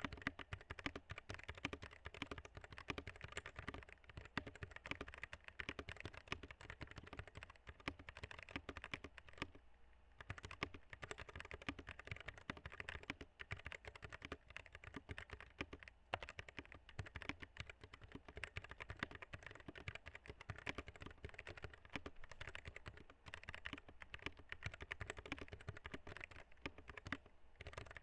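Continuous rapid typing on a Royal Kludge RK71 mechanical keyboard with Huano brown tactile switches: a dense run of keystroke clacks, with a brief lull about ten seconds in.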